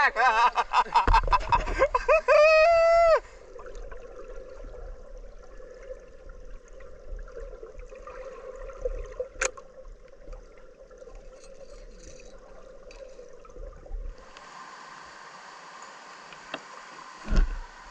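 A voice calling out for about three seconds, then the steady, muffled gurgle of river water.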